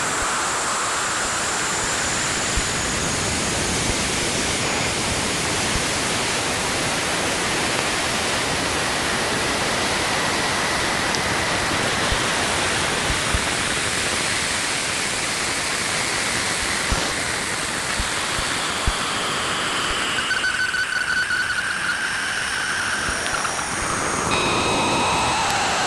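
Sonified space radio data: a steady hiss of static, with a few faint clicks, and several thin whistling tones that slide downward in pitch over the last few seconds.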